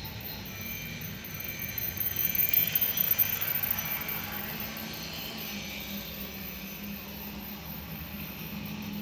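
RailKing model steam train running on its track: a steady motor and rail hum that swells louder about two to four seconds in as it passes close by.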